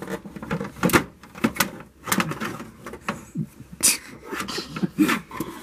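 Handling noise: irregular knocks, taps and rustles as stuffed toys are moved around by hand.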